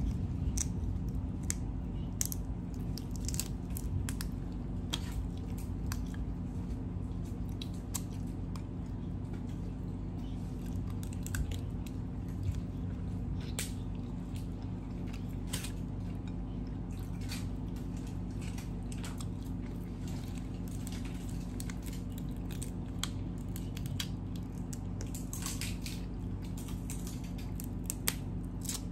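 Boiled crab legs cracking and snapping as the shells are broken open by hand, with scattered sharp shell cracks, wet squishing and chewing close to the microphone. A steady low hum runs underneath.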